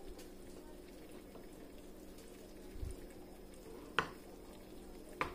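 A cup knocking against the rim of a metal stockpot of broth, two sharp knocks about four and five seconds in, over a steady faint hum.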